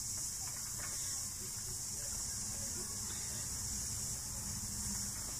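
Wooden spinning wheel running as yarn is spun, its flyer and wheel mechanism making a soft, steady clicking rumble. Under it, a steady high drone of cicadas.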